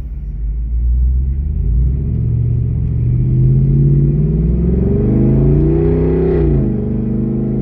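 Jeep Wrangler Rubicon 392's 6.4-litre HEMI V8 through a Borla ATAK exhaust in its loud performance mode, heard from inside the cab as it accelerates hard. The engine note rises steadily for about five seconds, then the revs drop sharply and settle at a steady lower pitch.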